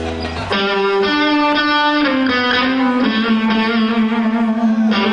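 Electric guitar, amplified and distorted, playing a slow line of held notes that step down in pitch, after a low bass note at the very start.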